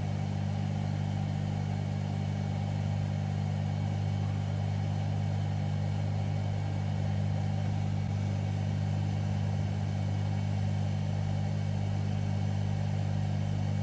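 Steady low hum of a small electric blower running at a constant speed, with no change in level.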